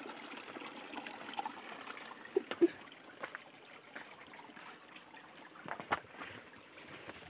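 Shallow stream trickling over stones, growing fainter after about three seconds, with footsteps on rocks and a few sharp clacks, the loudest pair about two and a half seconds in.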